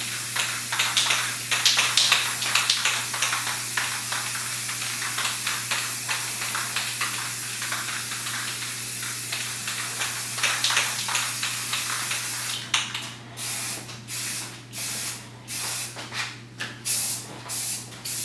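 Aerosol spray-paint can hissing as paint is sprayed onto a wall. The hiss is continuous at first, then about two-thirds of the way in it breaks into a run of short bursts, about ten, each under a second.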